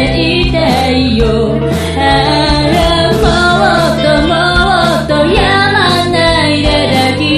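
Band music with guitar, bass, drums and keyboard, over which a female voice sings a wavering melody line.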